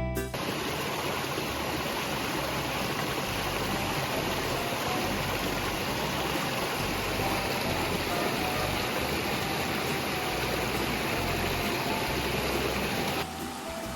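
Steady rushing of a flowing stream, an even wash of water noise that cuts off abruptly near the end.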